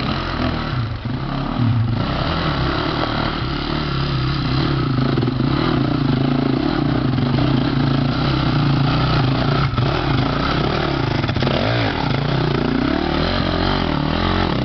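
Dirt bike engine running under throttle on a rocky trail, the revs rising and falling unevenly as the rider picks his way over the rocks, with a few quick rev swells a little after the middle.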